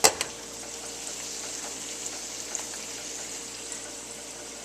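Onions and pork fat scrunchions frying in a pan, a steady sizzle, with a sharp click or knock right at the start.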